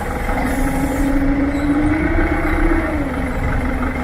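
Heavy vehicle engine running with a steady low rumble; its pitch rises slowly for a couple of seconds, then falls back as it eases off.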